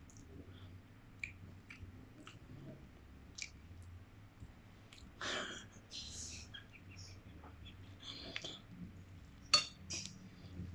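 Quiet eating sounds: scattered clicks of utensils against a bowl and small mouth sounds of eating noodle soup. There is a short, louder noisy burst about five seconds in and a sharp click near the end.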